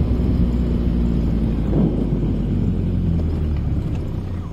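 Vehicle engine running steadily, heard from on board as a low hum with a rumble, easing off a little near the end.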